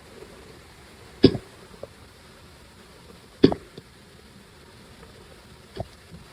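A person hiccuping: three short, sharp hiccups about two seconds apart, the third softer than the first two.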